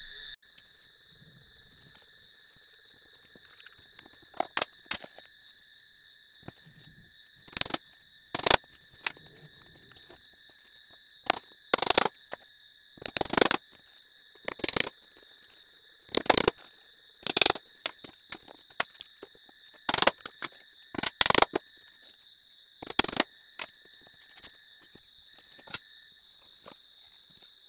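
More than a dozen sharp knocks and taps at irregular intervals, in loose clusters, over a steady high-pitched whine.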